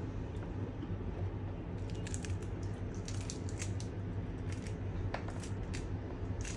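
Scattered light clicks and taps of a kitchen knife and fruit being handled on a cutting board, over a steady low hum.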